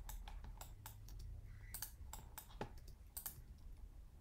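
Irregular clicking of a computer keyboard and mouse, about a dozen sharp taps at uneven spacing, over a faint low steady hum.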